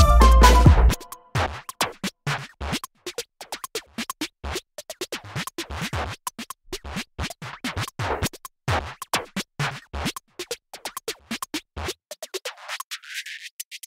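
Background electronic music: a full beat with heavy bass drops out about a second in, leaving a long stretch of sparse, sharp clicking percussion and scratch-like hits. Near the end the low end is swept away so the sound thins out.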